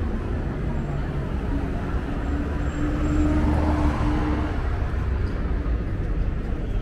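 Street traffic noise: a steady low rumble of passing vehicles, with a held engine tone from about one and a half to four and a half seconds in.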